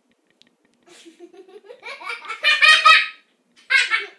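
A person laughing: soft pulsed giggles that build into loud, high-pitched laughter, then one more short burst of laughter near the end.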